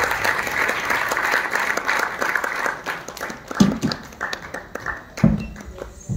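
Audience applause that thins out and fades after about three seconds, followed by a few dull thumps.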